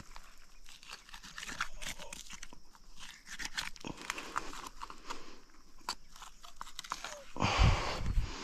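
Knife work on a deer carcass: a run of small crunching, crackling clicks as hide and meat are cut, with a louder rustling thump with a low rumble about seven and a half seconds in.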